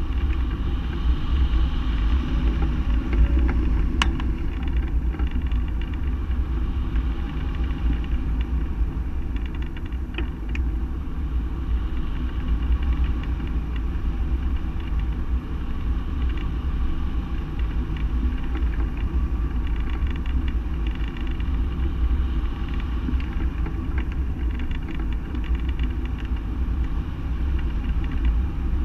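Wind rushing over a camera mounted on a hang glider's wing in flight: a steady low rumble of buffeting with a hiss above it, and a faint sharp click about four seconds in.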